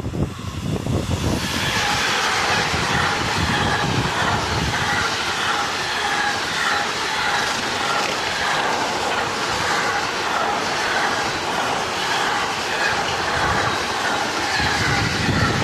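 Rail-motorway freight train behind a Class 186 electric locomotive passing at speed, its wagons loaded with lorry semi-trailers. A loud, steady rush of wheels on rail builds sharply about a second in and holds as the wagons go by, with wheels clacking over rail joints, stronger near the end.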